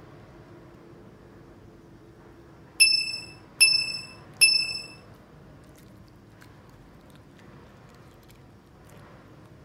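Three bright chime dings a little under a second apart, each striking sharply and ringing away: an edited-in sound effect to go with an on-screen "LIKE" graphic.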